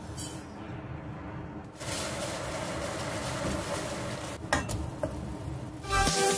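Food sizzling and frying in a pan over a steady low hum, with a couple of clicks about four and a half seconds in. The sizzle gets louder and brighter about two seconds in. Electronic intro music comes in near the end.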